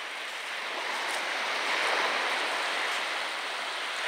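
Small waves washing up a beach, a steady hiss of surf that swells a little about two seconds in.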